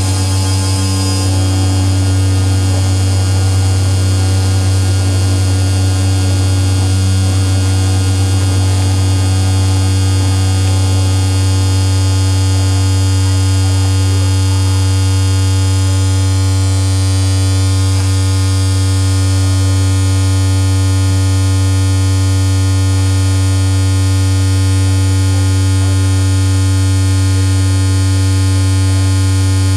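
Sustained electronic drone from a live effects-pedal and synth rig: a loud low hum under a dense stack of steady higher tones, with a faint sweep about halfway through.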